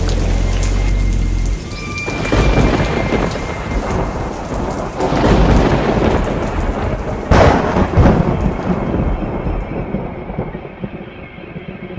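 Thunderstorm: heavy rain with rolling thunder and a sharp thunderclap about seven seconds in, the storm fading away near the end. A low drone stops suddenly about a second and a half in.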